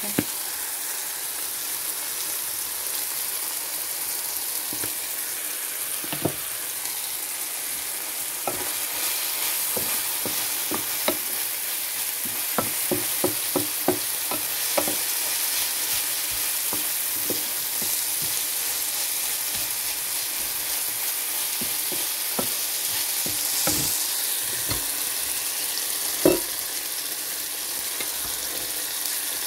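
Chopped onion, tomato and green onion sizzling in oil in a frying pan, a steady hiss. A wooden spatula stirs and knocks against the pan, with a quick run of taps about halfway through and one louder knock near the end.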